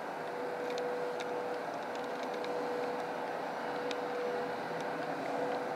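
A steady mechanical hum with a constant mid-pitched tone, and a few faint ticks scattered through it.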